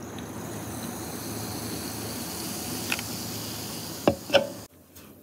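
Sprite lemon-lime soda pouring from a can into a glass tumbler and fizzing with a steady hiss that slowly grows louder. Near the end come two sharp knocks as the can is set down on the wooden table, then the sound cuts off suddenly.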